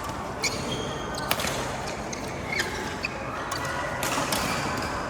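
Badminton rally: several sharp racket-on-shuttlecock hits at irregular intervals, with brief shoe squeaks on the court floor, over the echoing noise of a large hall.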